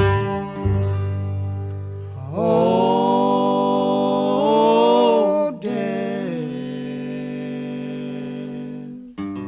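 Bluegrass recording: long held notes sung in close harmony with no words, sliding between pitches, over acoustic string accompaniment.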